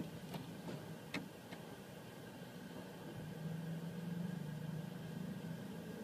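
Car idling, a low steady hum that swells in the second half, with a few light clicks in the first second and a half.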